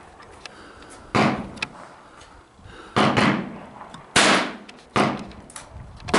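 Gunshots on an outdoor range: four or five sharp reports, about one to two seconds apart, each dying away in a short echo.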